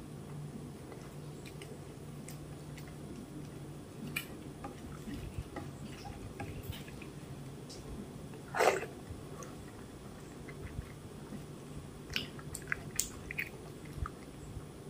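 Fingers mashing banana into milk-soaked rice in a steel bowl: soft wet squelches and small clicks, sparse at first and busier later, with one louder squelch about two-thirds of the way in. A faint low hum sits underneath.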